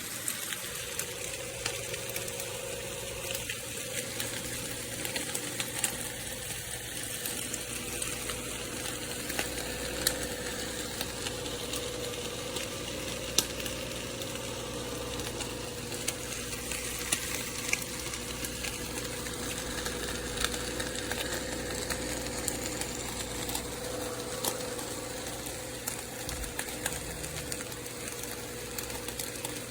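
Nespresso Vertuo Next coffee machine running a brew cycle: a steady motor and pump hum with a constant tone and scattered light clicks.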